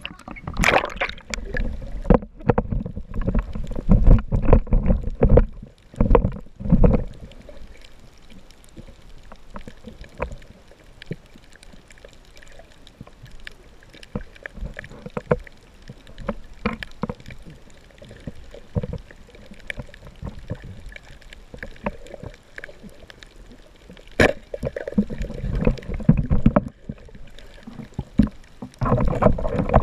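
Water sloshing and splashing against a waterproof action camera at the surface for the first several seconds, then muffled underwater noise with scattered sharp clicks as it moves over a coral reef. Louder splashing and sloshing return near the end.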